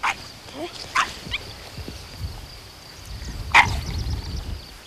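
Dogs barking: three short, sharp barks spread over a few seconds, the loudest near the end.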